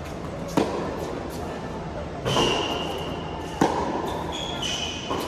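Tennis rally on an indoor hard court: a racket strikes the ball sharply twice, about three seconds apart, with a softer hit or bounce between and another near the end. Short high squeaks come between the strokes, and the hall echoes.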